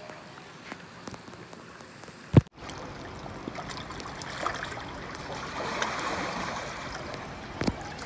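Water gurgling and trickling among rocks in a narrow rock crevice, as an even wash with small splashy ticks. A sharp click a little over two seconds in, after which the water sound comes up fuller.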